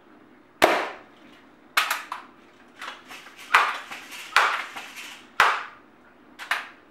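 Six sharp shots from a Crosman Legacy 1000 multi-pump pneumatic air rifle, about a second apart, each with a short ring-off in a small room.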